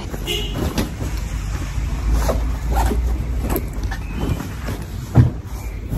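A low rumble under irregular rustles and light knocks, the sound of things being handled and packed.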